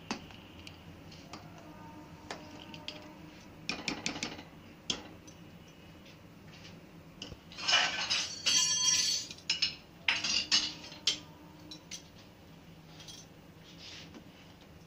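A metal spoon stirring milky kheer in a stainless steel pressure cooker pot, scraping and clinking against the bottom and sides to keep the kheer from sticking as it comes to the boil. The scraping and clatter are loudest about halfway through and again a couple of seconds later.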